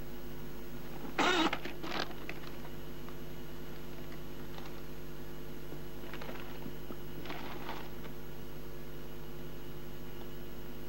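Quiet room tone over a steady low hum from an old film soundtrack. A brief noise comes about a second in, a smaller one just after, and a few faint soft sounds later.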